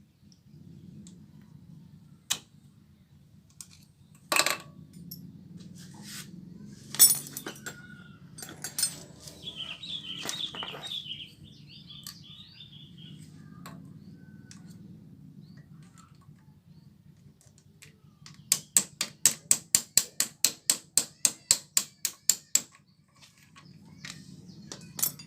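Hand tools and metal engine parts being handled while the Yamaha Vega ZR engine is taken apart: scattered sharp clinks and knocks, then a quick even run of about twenty sharp metallic clicks lasting some four seconds, about five a second.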